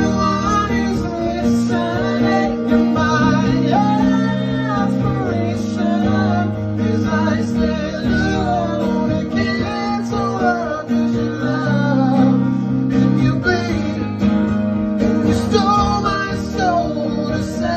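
Live acoustic guitar strummed steadily, with a man singing a melody that slides and bends in pitch over it.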